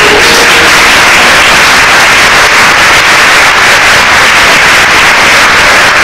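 Audience applause, loud and steady.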